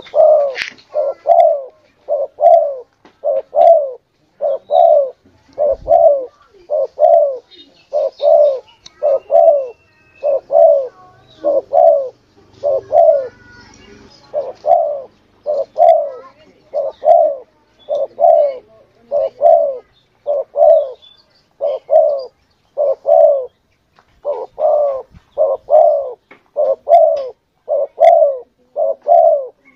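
Spotted dove (tekukur) cooing: low coo notes repeated over and over in quick, even phrases, used as a hunting lure call.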